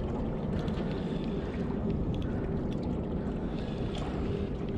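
A steady low rushing noise, with scattered faint ticks from a Shimano Stradic Ci4 1000 spinning reel being wound in against a hooked golden trevally.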